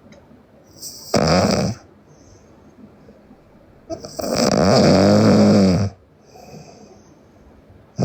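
A sleeping girl snoring loudly: a short snore about a second in, then a longer one in the middle whose pitch rises and falls.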